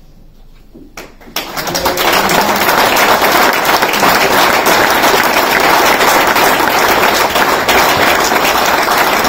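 Audience applauding: the clapping breaks out about a second in, swells within half a second and then holds steady and loud.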